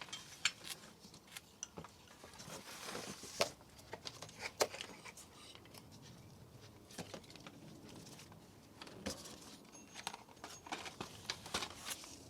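Scattered light clicks, clinks and knocks of metal hand tools and engine parts being handled, with some rustling; a few sharper knocks about three and a half and four and a half seconds in.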